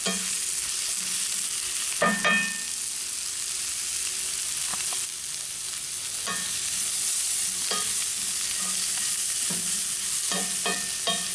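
Spinach and diced onion sizzling in butter in a hot cast-iron skillet as the spinach wilts down, with a wooden spatula scraping and knocking against the pan every second or two as it is stirred.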